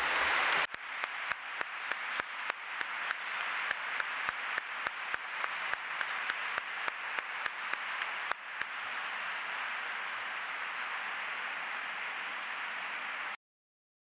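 Audience applauding, with one nearby pair of hands clapping about three times a second until roughly eight seconds in. The applause then carries on on its own and cuts off abruptly near the end.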